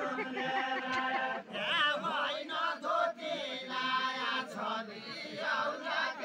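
Group of men singing a Nepali deuda folk song together, a chant-like unison of many voices in repeated phrases, with a short break about a second and a half in before the next phrase.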